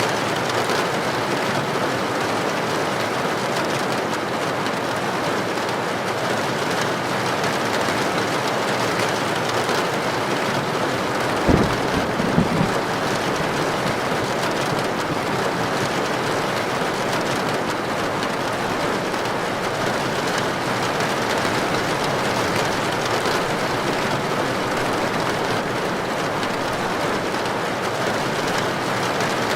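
Heavy rain falling steadily on a tin roof. About halfway through comes a brief, sudden low thump of thunder.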